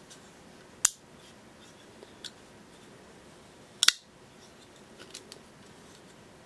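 Strider SnG folding knife being opened and shut: its blade snaps into lockup and closes with two sharp metallic clicks about three seconds apart, the second a quick double click, with a few faint ticks of the blade moving in between.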